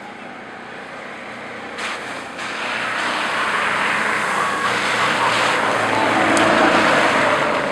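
Golf cart driving through a deep puddle on a wet paved path: tyres hissing and throwing up spray. The sound builds from about two seconds in and is loudest near the end as the cart passes close by.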